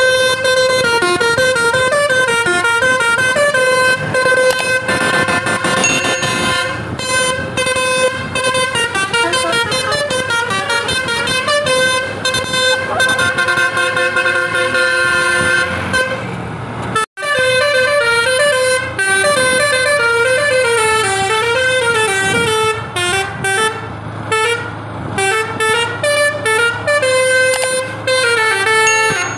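Basuri V3 telolet bus horn, a set of roof-mounted air-horn trumpets, playing a quick melody of stepping notes. It cuts out for a moment about 17 seconds in, then plays on in shorter, choppier notes.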